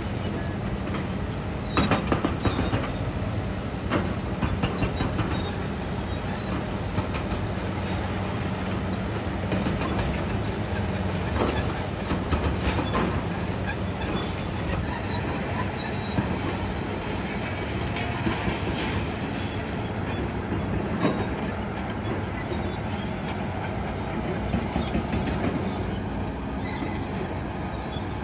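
Demolition machinery working a rubble pile: irregular metal clanks, knocks and scraping from an excavator moving concrete and scrap metal, over a steady engine hum and rumble.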